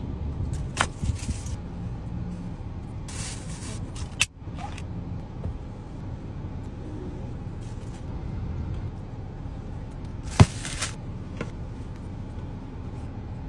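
Steady low rumble of a car's engine idling, heard from inside the cabin. Aluminium foil crinkles about a second in, with a few sharp clicks of handling, the loudest one about ten seconds in.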